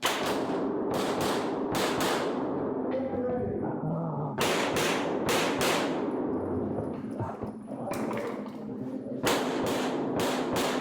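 Glock 19 9mm pistol fired in rapid strings of shots, mostly in close pairs, each shot echoing around an indoor range. There is a pause of about two seconds in the middle before the shooting resumes.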